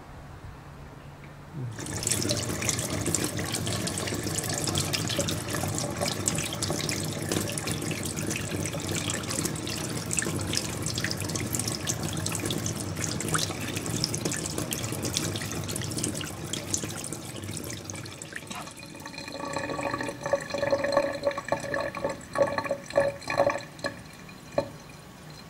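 Running water, a steady splashing rush like a tap running, which starts about two seconds in. Near the end it gives way to a series of irregular knocks over a ringing, pitched sound, the loudest moments here.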